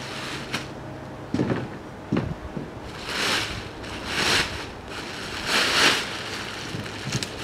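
Plastic vapor-barrier sheeting rustling and crinkling in several long swells, after two dull thumps about one and a half and two seconds in as rocks are set down to hold it.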